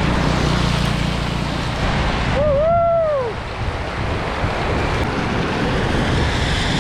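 Wind buffeting the microphone while riding a bicycle: a loud, steady rush with a low rumble. About two and a half seconds in, a short rising-and-falling whoop.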